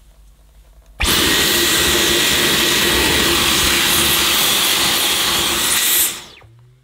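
Dyson V11 cordless stick vacuum switched on about a second in, running in boost mode with a crevice tool fitted. It makes a steady rush of air with a thin high whine as it sucks dust from a brush-bar housing, then is switched off and winds down just after six seconds.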